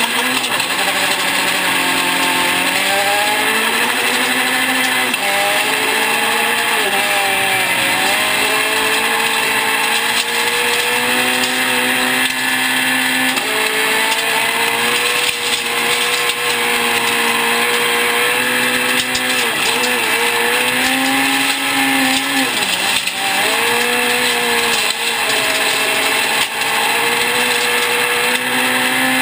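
Peugeot 208 R2 rally car's 1.6-litre four-cylinder engine heard from inside the cabin, revving hard at full stage pace: the pitch climbs and drops sharply at each gear change, again and again, with deeper dips where it brakes and downshifts. Gravel and tyre noise runs underneath.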